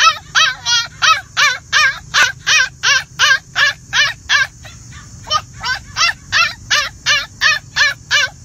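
A puppy yelping over and over, about three short yelps a second, with a brief lull around the middle.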